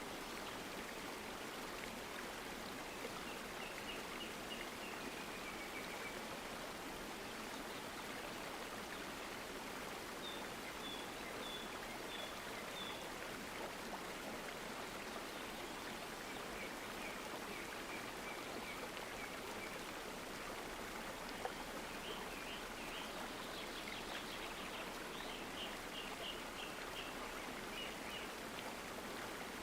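Steady rush of a flowing stream, with small birds calling over it in short series of quickly repeated high notes several times.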